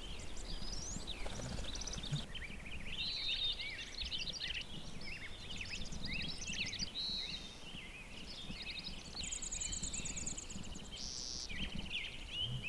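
Several wild songbirds singing at once: overlapping chirps, trills and whistles, with a high rapid trill about nine seconds in, over a low steady background rumble.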